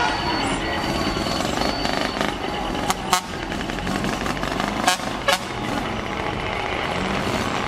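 Diesel engine of a decorated Japanese truck (dekotora) running as the truck rolls slowly past, over a steady rumble. Several sharp clicks come about three and five seconds in.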